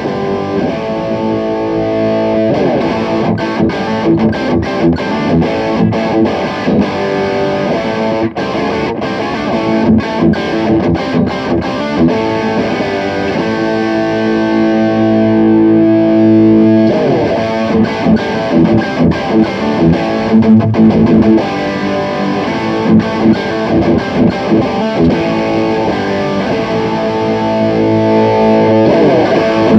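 Distorted electric guitar from a Fender Stratocaster played through a Fire Custom Shop Ultimate Distortion pedal into a miked Peavey Bandit 112 combo amp. It plays rock riffs of short, stopped chords mixed with ringing chords, with one long chord held about halfway through.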